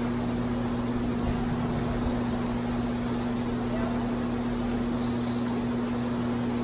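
Steady mechanical hum with a constant low tone.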